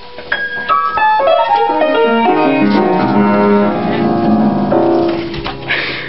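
Piano keys pressed by a cat walking across them: a run of separate notes stepping down from high to low, the notes ringing on together. A short noisy rush comes near the end.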